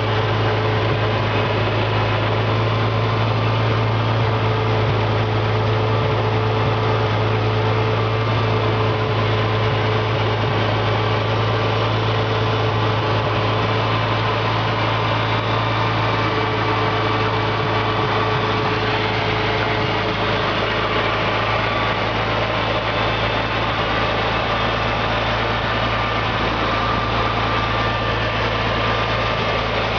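International 460 gas tractor's six-cylinder gasoline engine running steadily at a constant speed, a continuous low hum.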